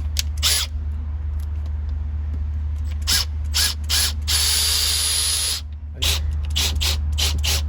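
Ratcheting clicks and knocks of tool work on the tap fitting, with a steady hissing run of a little over a second about four seconds in.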